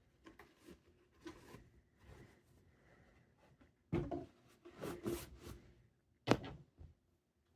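Unboxing handling noise: packaging rustling and light knocks, with a louder rustle about four seconds in, another around five seconds and a sharp knock shortly after six seconds.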